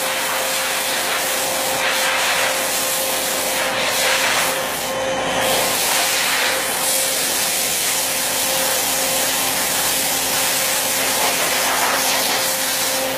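CNC router cutting wood: a steady hiss of the cutter with a steady motor hum underneath, swelling and easing every few seconds as the tool moves.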